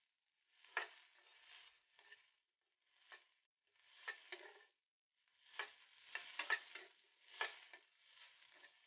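Spatula stirring sliced onions sautéing in oil in a kadhai, with a light sizzle. The stirring comes in short bursts, with a few sharp clicks of the spatula against the pan.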